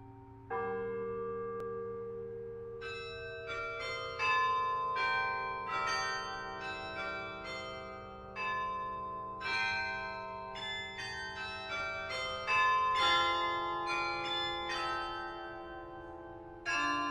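Church tower bells ringing: many strikes in quick succession, each bell ringing on and overlapping the next, with louder strikes about four seconds in and again near thirteen seconds.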